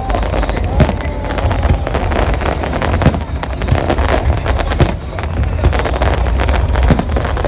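Fireworks display: aerial shells and ground fountains bursting, a dense irregular run of sharp bangs and crackles over a constant low rumble.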